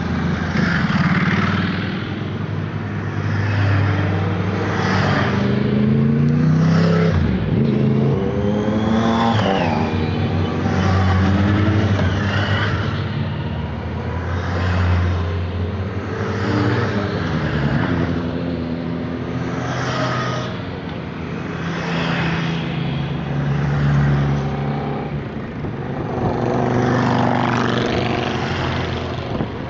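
A procession of motorcycles riding past one after another, a new bike going by about every two seconds, each engine note swelling and then dropping in pitch as it passes.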